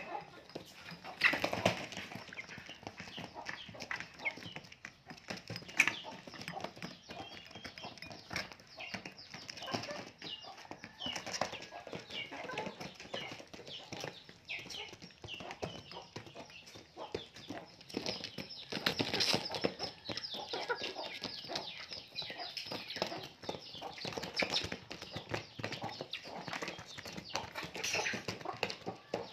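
Puppies eating rice: a continuous run of irregular wet chewing, smacking and lapping clicks as they pick grains off a plastic mat and styrofoam trays.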